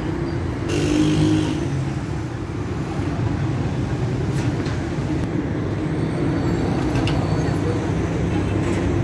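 Busy city street traffic: a steady rumble of passing cars and their engines, with voices of passers-by mixed in.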